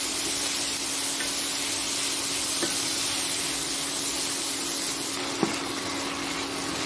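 Sliced onions, tomatoes and cashews sizzling steadily in hot oil in a non-stick kadhai, stirred with a wooden spatula that gives a few light taps against the pan. A steady low hum runs underneath.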